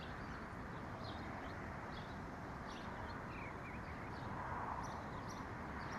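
Outdoor ambience: a steady soft hiss with small birds chirping faintly, short high chirps about once a second.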